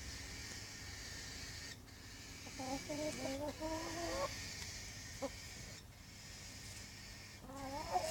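Chickens clucking in two drawn-out, wavering bouts, one about two and a half seconds in and another near the end.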